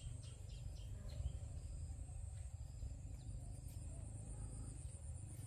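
Rural outdoor ambience: a steady, high-pitched insect trill over a low rumble, with a few faint ticks.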